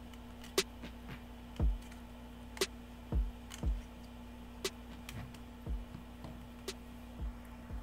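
Handling noise from plastic non-contact voltage tester pens held in the hands: irregular soft, deep bumps and light clicks. A sharp tick repeats about every two seconds over a faint steady hum.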